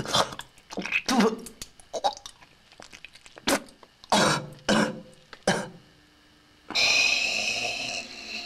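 A person retching and coughing in short, irregular gagging bursts over a toilet bowl. About two-thirds of the way through, a steady hissing rush starts suddenly and slowly fades.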